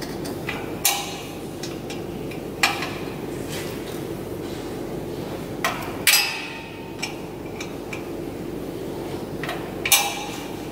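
Irregular sharp metallic knocks and clinks of a hand tool against the steel exhaust muffler and its fittings inside a generator canopy, about six in all, the loudest about six seconds in with a short ring, over a steady low hum.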